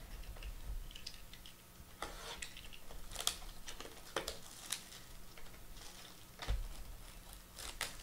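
Trading-card boxes and their wrapping being handled and opened by hand: scattered crinkling, taps and clicks, with a dull thump about six and a half seconds in.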